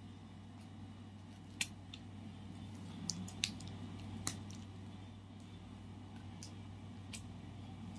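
Hands working at tough toy packaging, trying to tear it open: a few scattered sharp clicks and crackles over a faint steady hum.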